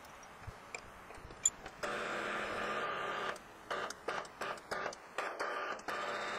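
Precision Matthews PM-727 milling machine drilling a hole in a steel block, its spindle giving a steady whine. The whine drops away at the start, with a few clicks, and returns about two seconds in. From a little past the middle it comes in short spurts with clicks, then runs steadily again near the end.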